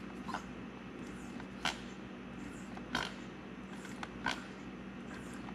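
Hand pump on a quart bottle of SAE 90 gear lube being worked, a short sound with each stroke, about one every second and a half, as gear oil is pumped into an outboard's lower unit through the bottom drain hole.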